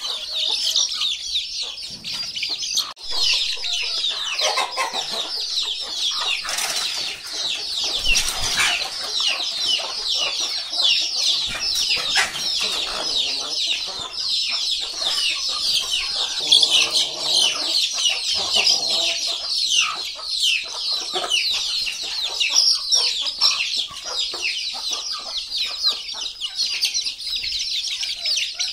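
A flock of chicks peeping continuously in a dense chorus of short high-pitched chirps, with a hen clucking now and then.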